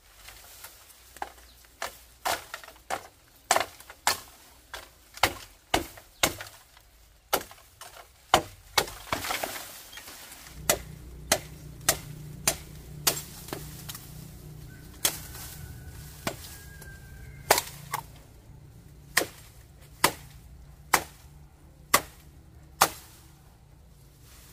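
Repeated chopping with a blade: sharp, even strikes about one to two a second, slowing a little in the second half. A low steady hum comes in about ten seconds in.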